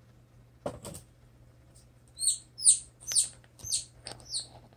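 Newly hatched bantam chicks peeping: a run of about five high, falling peeps, roughly two a second, starting about halfway through. A short handling noise comes under a second in.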